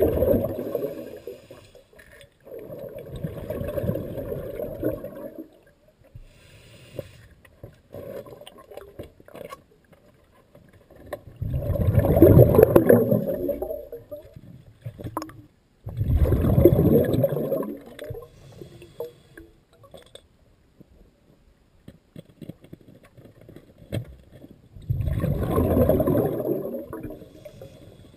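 Scuba regulator exhaust bubbles from a diver breathing underwater: long rushing bursts of exhaled air, four full ones and the end of another at the start, with quieter gaps between them while the diver inhales.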